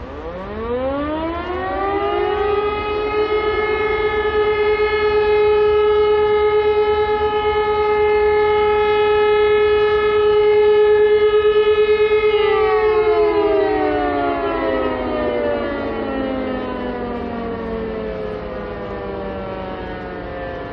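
Motor-driven warning siren winding up over about three seconds to one steady wailing tone, holding it for about ten seconds, then slowly winding down.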